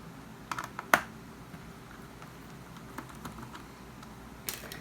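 A few short, sharp clicks and taps of small hand tools and plastic parts being handled: a small cluster about half a second in, a louder click just before a second in, and a couple more near the end.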